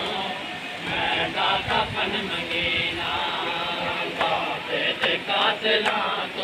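Male voices chanting a Shia noha (mourning lament) together, in a continuous chorus.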